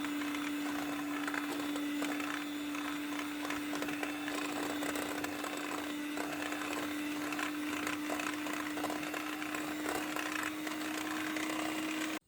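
Electric mixer beating cake batter, running at a steady speed with a constant motor hum, then switched off abruptly near the end.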